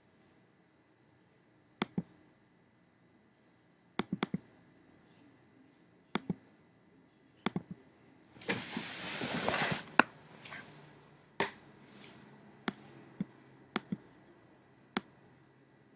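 Scattered sharp clicks of a computer mouse and keyboard, some single and some in quick pairs or runs of three or four. A short rush of noise lasting about a second comes a little past the middle.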